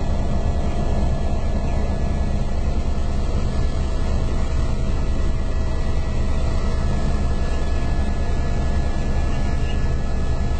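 Helicopter engine and rotors running steadily in cruising flight, heard from inside the cabin: a constant heavy drone with a faint steady whine above it.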